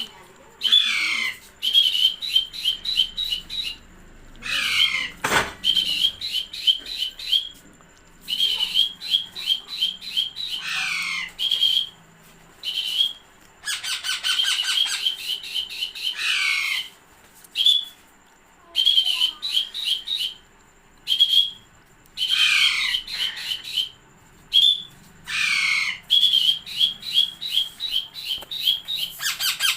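A parrot calling in bouts: rapid runs of short, high squawks several a second, broken by screeches that fall in pitch, with short pauses between bouts.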